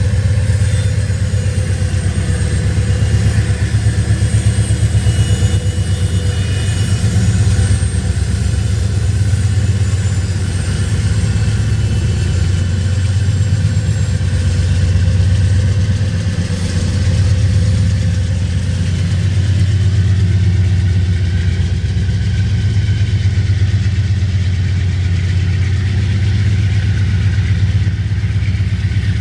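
Three GE diesel-electric freight locomotives, two C40-8W Dash 8s and an ES44AC, working past under power with a steady deep engine rumble. This gives way to the rolling rumble of loaded centerbeam lumber cars.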